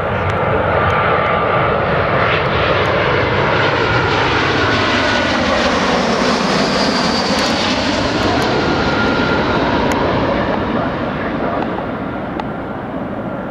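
Airbus A320-family jet airliner on final approach, gear down, passing low overhead: loud steady jet engine noise with a whine, its tone sweeping down and back up as it goes over, easing off slightly near the end.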